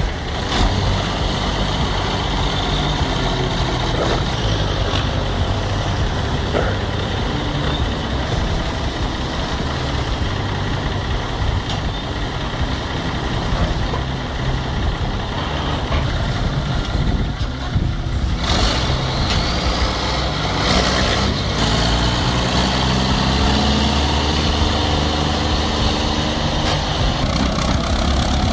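Heavy vehicle engine running steadily, its pitch rising over the last third as it works harder, with a couple of brief hissing bursts about two-thirds in.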